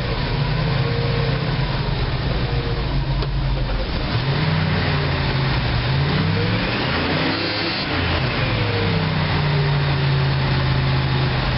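1986 GMC Blue Bird school bus's 366 cubic-inch big-block V8 running with the choke pulled out, revved up once about halfway through and dropping back to a steady idle. It runs only on the choke because the Holley four-barrel's accelerator pump is not delivering fuel, which the owner puts down to a blocked passageway.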